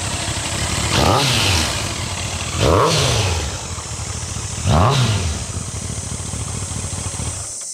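1988 Kawasaki ZX-10's inline-four engine, with a non-stock silencer, idling and blipped three times, each rev rising and falling back to idle, then switched off near the end. The loud mechanical clatter under the exhaust note is normal for this engine, not a sign of a fault.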